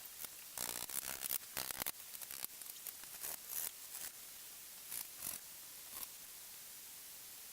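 Short, irregular scraping and rustling noises, bunched in the first half and thinning out after about five seconds.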